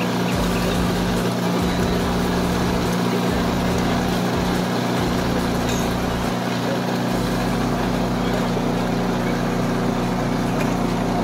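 A motor running steadily with a constant hum, unchanging in pitch and level.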